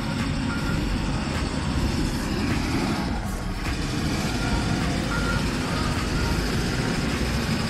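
Land Rover Discovery SUV driving slowly up a soft sandy gully toward the microphone, its engine running steadily under load.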